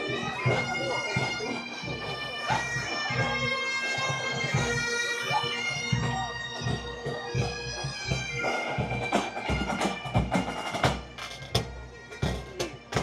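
Pipe band: bagpipes playing a melody over a steady drone, with drums beating underneath. The pipes fade near the end, leaving mostly drum strokes.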